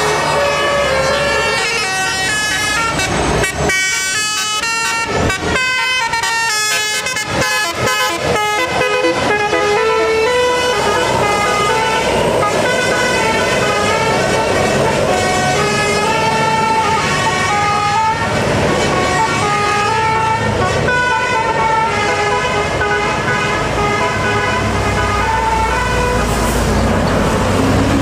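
Bus telolet horns, a set of musical air horns, playing a fast multi-note tune whose notes step up and down, with short choppy notes about three to nine seconds in. The bus engines run underneath, growing louder near the end.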